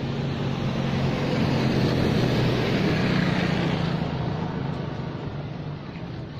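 A passing motor vehicle's engine hum, swelling over the first two seconds and fading after about four seconds.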